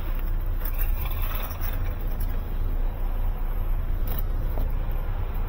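Car running: a steady low rumble, with a couple of faint clicks.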